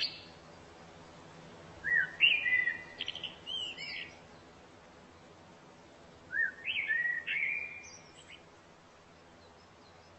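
A bird singing: two phrases of quick rising and falling notes, each about two seconds long, starting about two seconds in and again about six seconds in.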